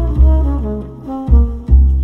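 Jazz duet played through a high-end car audio system (Accuton, Zapco, Acoustic Elegance and Steg components): deep double bass notes, several in quick succession, under a horn melody.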